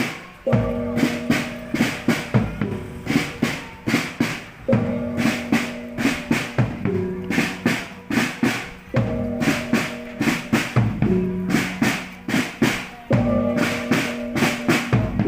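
Loud music of drums and a melody instrument: quick drum strokes all through, with a short melodic phrase of held notes that repeats about every four seconds.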